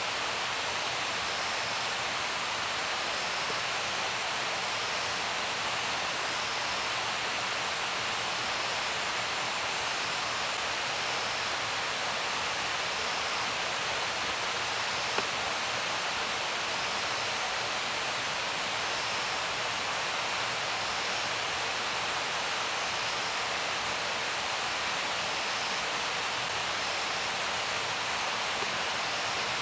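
Steady, unchanging hiss like rushing water or background noise, with one faint click about halfway through.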